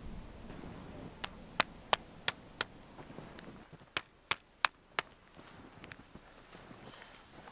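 A hiker walking on hard, frozen snow makes sharp clicks in a walking rhythm: five quick ones at about three a second, a short pause, then four more.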